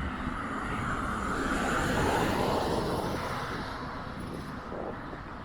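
A vehicle passes, rising to its loudest about two seconds in and then fading, with wind buffeting the microphone.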